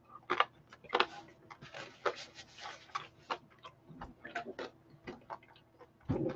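A person chewing a mouthful of hot pepper pizza close to the microphone: soft, irregular mouth clicks and smacks, with a long breath out about two seconds in.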